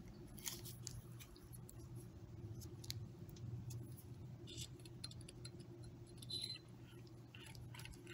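Faint clicks, taps and rubbing as TIG torch parts are handled in gloved hands: the rubber handle sliding on the torch body and a ceramic cup being picked up. A brief squeak comes about six seconds in, and a steady low hum runs underneath.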